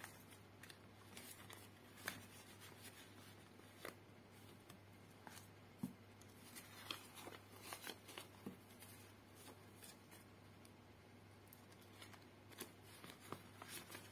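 Faint rustling and crinkling of paper banknotes being handled and slid into a plastic binder pocket, with scattered soft clicks, over a steady low hum.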